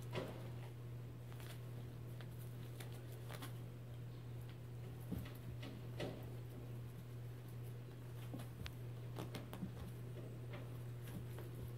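Faint scattered taps, scuffs and rustles of a Sphynx kitten's paws and claws on carpet and a pet bed as it pounces on and wrestles a toy mouse, over a steady low hum.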